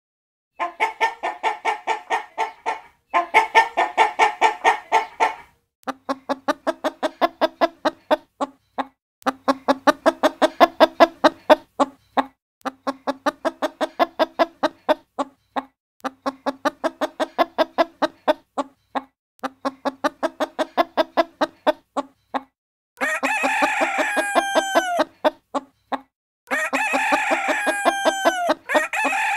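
Hens clucking in fast runs of short repeated notes, in several spliced clips cut off abruptly by silent gaps. Near the end a rooster crows twice, each a long call falling in pitch at its close.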